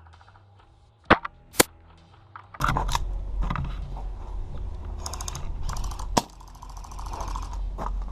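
Airsoft gunfire on the field: two sharp cracks about half a second apart, then a louder low rumble with a few more knocks.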